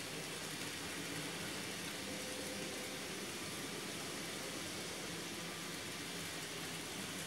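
Steady, even hiss of room noise, with no distinct sounds standing out.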